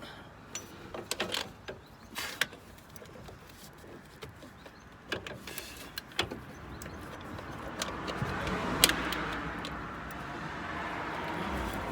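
Scattered clicks and knocks of hand tools on metal as alternator mounting bolts are worked up under the car. Over the last few seconds a steady noise swells up and carries on.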